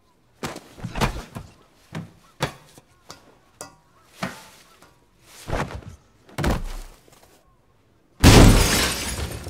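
Added fight sound effects: a run of about eight short, sudden hits and swishes, then a loud breaking crash about eight seconds in.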